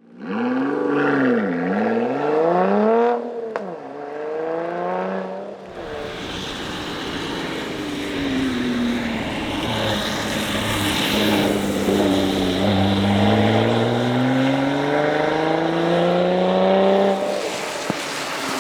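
A Lotus Exige Sport 410's supercharged V6 heard at speed, revving up and down through the gears. In the first few seconds the revs dip sharply twice and climb again. From about six seconds in, loud road and wind noise joins it, and the revs fall and then rise in one long steady pull.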